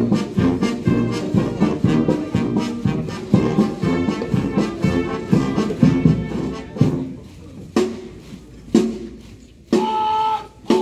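Military brass band playing a march, which breaks off about two-thirds of the way through. It is followed by a few single beats about a second apart and a short held tone near the end.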